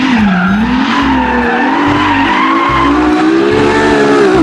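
Ferrari LaFerrari's V12 engine running under power while its rear tyres squeal and skid in a smoky slide. The engine note wavers, then climbs slowly and eases off near the end.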